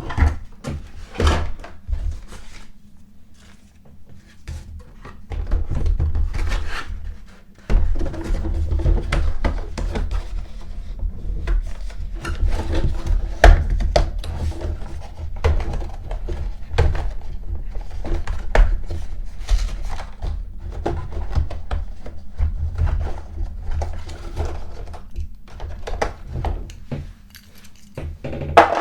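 Cardboard box and packaging being handled and pulled apart to free a toy: a steady run of scraping, rustling, short clicks and knocks, with a low rumble of handling noise.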